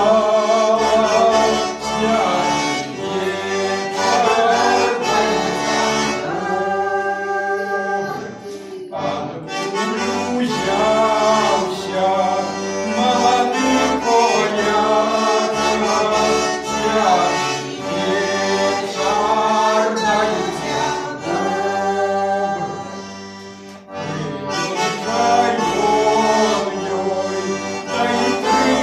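Button accordion playing a Belarusian folk Christmas carol (kaliadka), with a man singing the melody over his own accompaniment.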